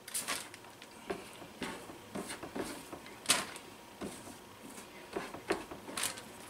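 Plastic zip-top bag rustling and crinkling as pieces of cooked meat are dropped into the flour inside it and the bag is handled, with scattered light clicks and knocks; one sharper knock about three seconds in.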